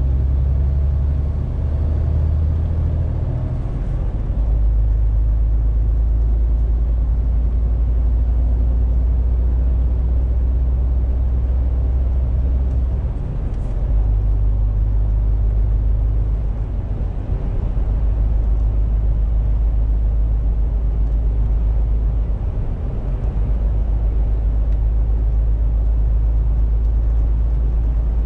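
MAN TGX 470 truck's straight-six diesel engine running under way, heard from inside the cab as a steady low drone over road noise. Its low note steps up or down several times, with a few brief dips in level.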